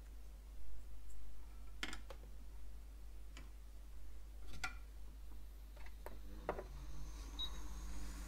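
Soldering work on a circuit board: about five light, sharp clicks and taps, spread out and separate from one another. A steady low hum with a hiss comes in near the end.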